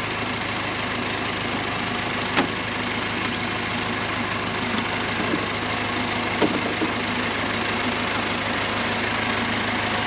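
Tractor engine idling steadily, with a few short sharp knocks over it.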